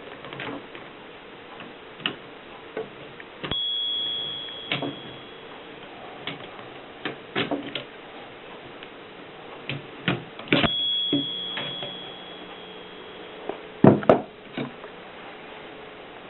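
Mercedes 6 manual typewriter being typed on: irregular key strikes clacking. The margin bell rings twice with a fading high ding, and there is a loud double clack near the end.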